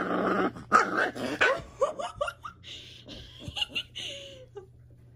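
Four-week-old Cane Corso puppy throwing an angry fit while being held: a rough puppy growl, then a string of short high yips and whines that trail off near the end.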